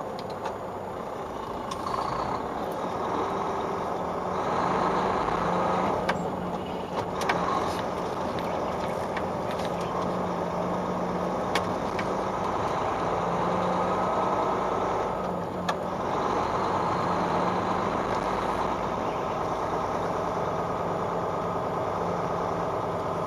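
A 2015 Mack CXU613 truck's diesel engine running steadily as the truck drives along city streets, heard from inside the cab with road noise and a few sharp clicks.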